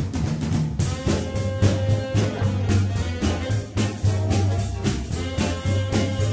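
Instrumental background music with brass and a drum kit on a steady beat.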